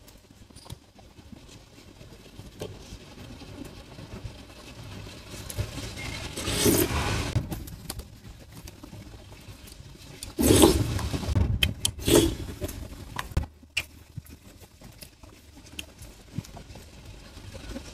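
Close-miked eating sounds of a meal of pares with rice: chewing and light clicks of a spoon on the bowl, with three louder noisy bursts in the middle.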